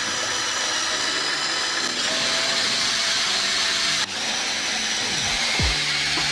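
Paintbrush working thick paint on paper, a steady loud rubbing-swishing of bristles through paint. The sound changes abruptly twice, about two and four seconds in.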